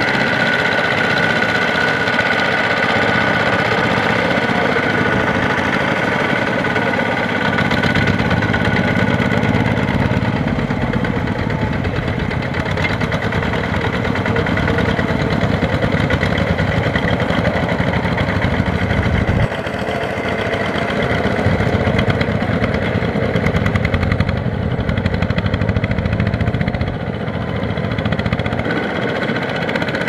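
Small single-cylinder diesel engines of two-wheel power tillers (Kubota RT155 type) running steadily under load as the machines plough flooded paddy mud on steel cage wheels, with a fast, even chugging.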